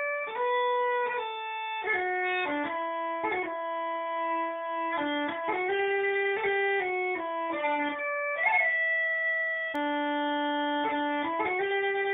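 Instrumental background music: a slow melody of held notes, changing every second or so, heard through a computer's speakers.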